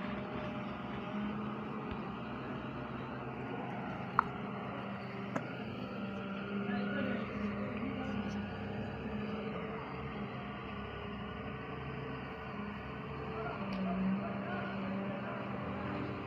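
Excavator's diesel engine running steadily as it digs, swelling briefly near the end, with two sharp knocks about four and five seconds in.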